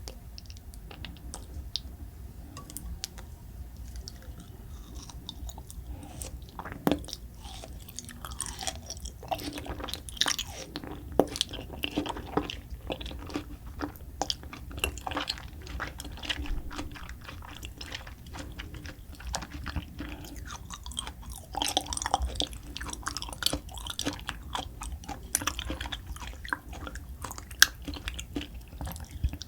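Close-miked chewing: a person eating, with many short wet smacks and clicks of the mouth and occasional crunches.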